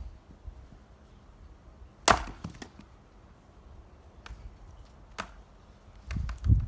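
An axe splitting firewood: one sharp, loud crack of the blade through the log about two seconds in, followed by lighter knocks of wood. Low thuds come near the end.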